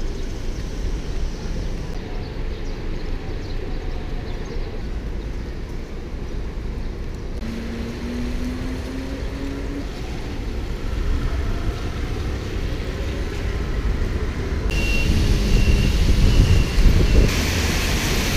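Street traffic on rain-wet roads, with wind buffeting the microphone as a heavy low rumble. The sound shifts abruptly a few times where the shots change.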